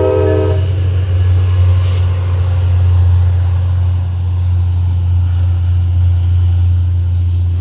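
A multi-chime air horn chord on an EMD F40PH diesel locomotive cuts off about half a second in. The locomotive's 16-cylinder diesel engine then runs loud and steady with a deep hum as it pulls away, with a brief hiss of air about two seconds in.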